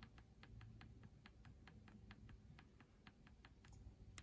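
Near silence with faint, rapid ticking, about five evenly spaced ticks a second, over a low background hum.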